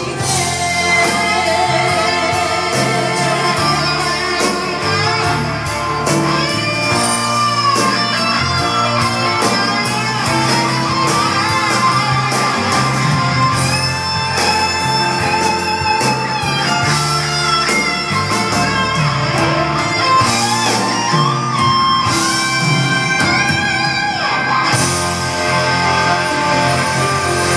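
Instrumental passage of a Japanese pop ballad: a full band with a lead guitar carrying the melody over a steady beat, without singing.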